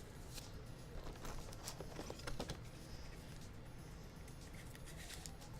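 Scattered light clicks and taps from trading cards being handled on a table.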